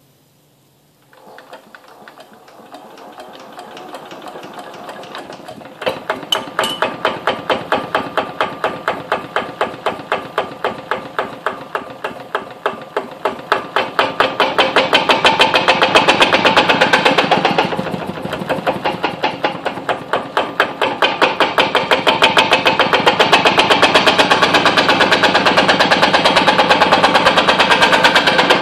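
Kubota 508cc single-cylinder diesel stationary engine being hand-cranked from cold: it winds up with a rising whir, then about six seconds in it fires and runs in distinct chugging beats. It picks up speed and gets louder, dips briefly, and settles into a steady run with a chatter from the engine vibrating against the floor.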